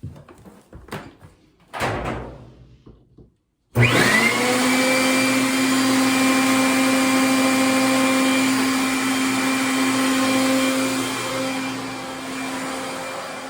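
Handling clicks and rustles, then an electric leaf blower switching on: its motor spins up in a quick rising whine and settles into a steady loud whine and rush of air, blowing through the dryer vent duct.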